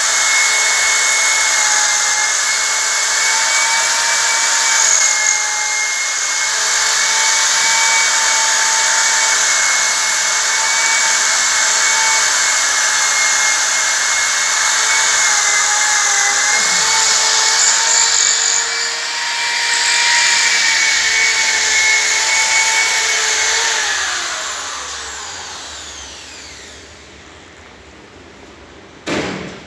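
Electric drill boring into ceramic floor tile: a steady high motor whine over grinding. Near the end the motor spins down, its pitch falling away, and a short knock follows just before the end.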